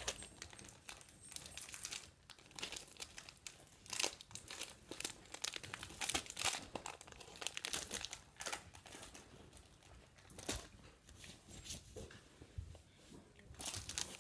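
Plastic wrapper of a Sweet Tarts Ropes candy pack crinkling and crackling in irregular bursts as it is handled and torn open.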